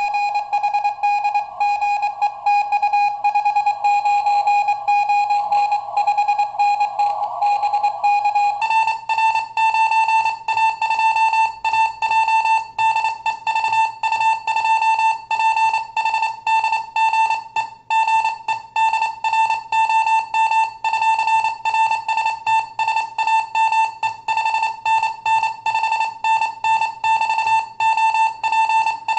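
Morse code (CW) on a ham radio: a steady beep tone keyed rapidly on and off in dots and dashes. About nine seconds in, the tone steps up slightly in pitch and the hiss around it drops away.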